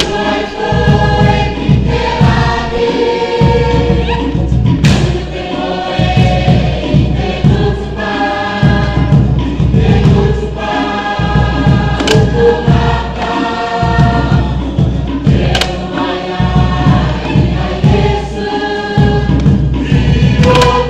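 A group of voices singing a Pukapukan kapa rima action song in harmony, with a steady drum beat underneath and a few sharp accents.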